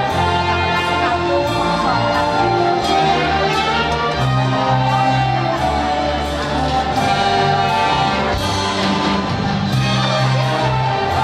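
Orchestra with violins and double bass playing a slow song arrangement: a sustained melody over a held bass line, with a steady beat underneath.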